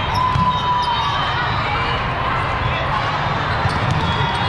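Steady din of a large hall full of volleyball matches: balls being hit and bouncing on the courts amid players calling out and a murmuring crowd.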